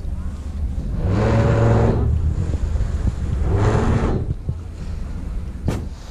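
A yacht's motors in two short bursts about two seconds apart, each a steady hum with hiss lasting about a second, as the boat manoeuvres into a lock. Wind rumbles on the microphone throughout, and there is a sharp click near the end.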